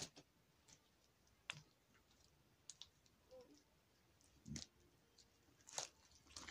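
Handmade slime being pressed and stretched by hand into a bubble: a few faint, scattered clicks and small pops, about seven of them spread over several seconds, otherwise near silence.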